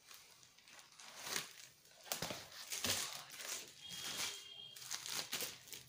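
Brown paper and plastic wrapping crinkling and tearing as it is pulled off by hand, in quick irregular rustles.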